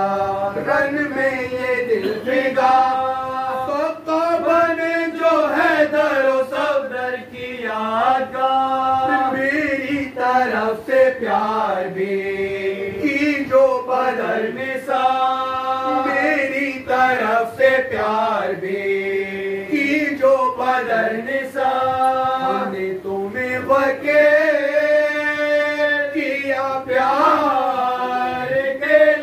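Unaccompanied men's voices chanting a noha, a Shia mourning lament, through a microphone, in long melodic lines with held notes and no drum or chest-beating rhythm.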